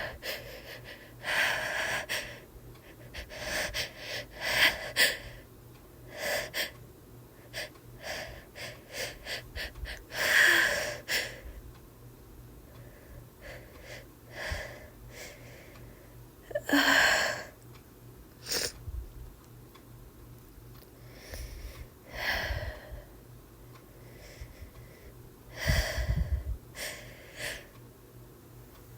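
A woman with a cold builds up to sneezes: repeated hitching, gasping in-breaths and sniffs, with sneezes breaking out between them. The loudest bursts come about ten and seventeen seconds in.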